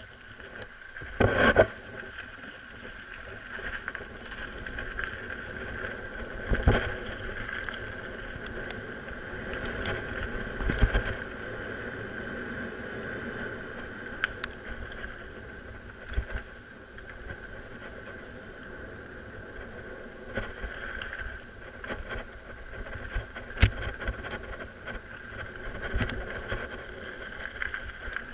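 Mountain bike ridden over a dirt singletrack, heard from an action camera carried on the ride: a steady rumble and rattle from tyres and trail, under a steady high whine, broken by sharp knocks as the bike hits bumps. The loudest knock comes about a second in, and several more follow through the ride.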